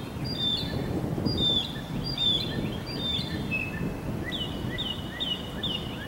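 Birds chirping: repeated short high chirps, then a quick series of down-slurred notes about two a second near the end, over a constant low rumble of distant thunder.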